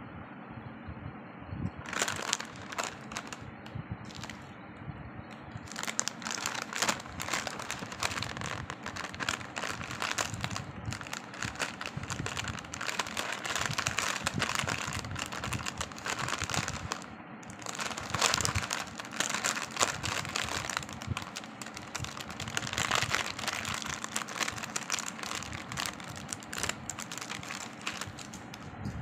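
Plastic snack packets crinkling and crackling as hands handle and open them. It starts about two seconds in and goes on in uneven bursts.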